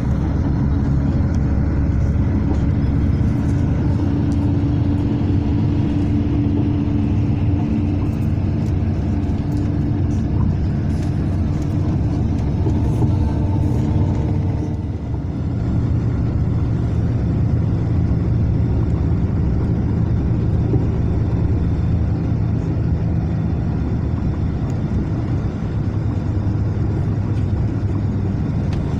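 Mercedes-Benz O500 RSD coach's diesel engine and road noise heard from inside the passenger cabin while driving at speed, a steady low drone. About halfway through the level dips briefly and the engine note settles lower.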